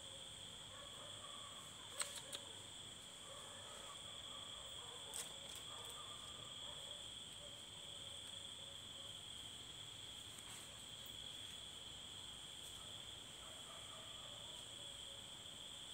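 Faint, steady chorus of crickets trilling at night, one unbroken high tone with a second, higher one above it. A couple of sharp clicks come about two and five seconds in.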